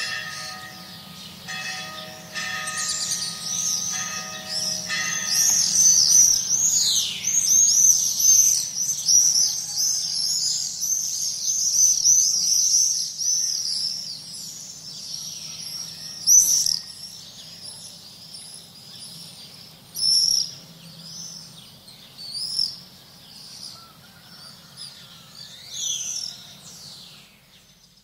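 Flocks of swifts screaming: many overlapping high, shrill looping calls from a few seconds in, thinning to occasional passing screams in the second half. A mid-distant bell tolls a few more strokes in the first few seconds, over a faint low steady hum of the town, and the whole fades out at the end.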